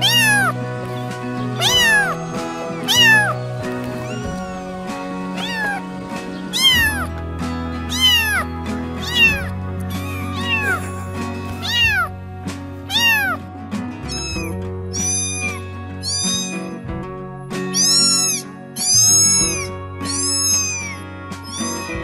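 Kitten meowing over and over, short high-pitched meows about once a second that fall in pitch, turning higher and arching in the second half. Background music plays underneath.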